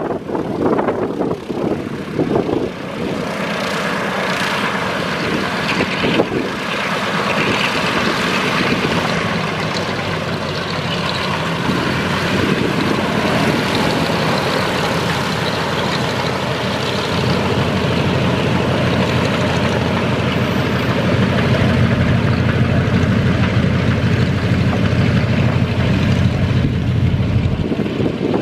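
Douglas DC-3's two radial piston engines running at low power as it taxis, a steady propeller drone with a deep rumble that grows louder about two-thirds of the way through.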